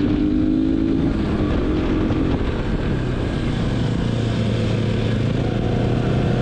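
Motorcycle engine running on the move. Its note rises slightly at first, then drops to a steady lower note from about three seconds in.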